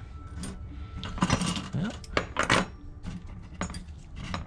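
Small steel nuts and washers clinking and rattling in a metal mesh parts tray as gloved fingers sort through them for flat washers. The clinks come in a few short clusters, loudest about a second and a half in and again about two and a half seconds in.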